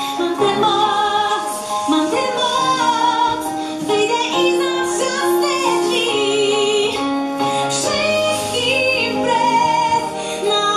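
Music: a high voice singing a melody with wavering held notes over instrumental accompaniment.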